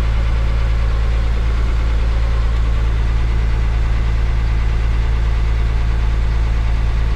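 Farm machine's engine idling steadily, heard from inside the cab, with the freshly recharged air conditioning running and its blower pushing cold air from the roof vents.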